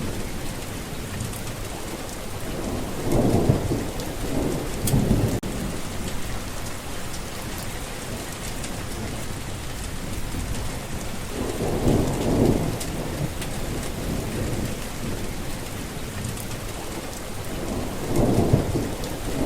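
Steady rain falling, with rolling thunder rumbling three times: about three seconds in, near the middle, and near the end.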